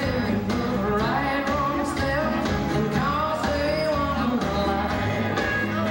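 Pop song with a singing voice over a steady beat.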